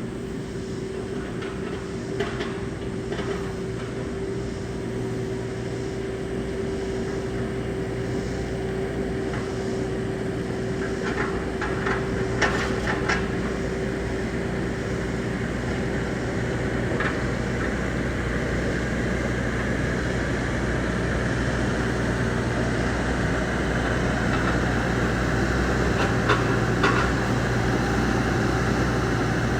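Bobcat E26 compact excavator's diesel engine running steadily at working speed, slowly growing louder, with a handful of short clanks and rattles.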